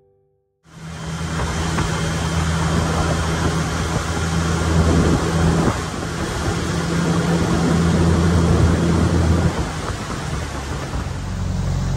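Older 9.9 hp outboard motor running steadily under way, heard through a loud, even rush of wind and water noise. It starts just under a second in.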